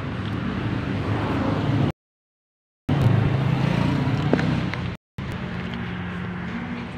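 Street traffic noise, with a motor vehicle's engine running close by as a low steady hum. The sound cuts out completely for about a second near two seconds in, and briefly again about five seconds in.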